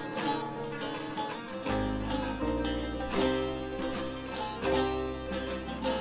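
Turkish saz music: bağlama-family long-necked lutes picked with quick plectrum strokes, with keyboard accompaniment. A low held bass note comes in about two seconds in and carries on under the picking.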